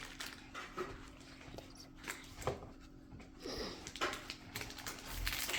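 Faint taps and light shuffling of trading cards being handled and set down, a few scattered clicks, with a brief falling whine-like sound about three and a half seconds in.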